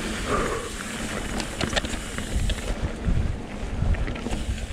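Mountain bike descending fast on a dirt trail: tyres rolling over the ground with wind rushing on the microphone and scattered sharp clicks and rattles from the bike over rocks.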